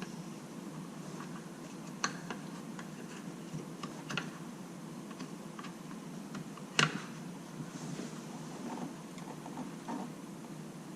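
Scattered light clicks and taps, the sharpest about seven seconds in, as an aftermarket metal pedal cover is worked by hand over a Tesla Model Y's rubber pedal, over a steady low hum.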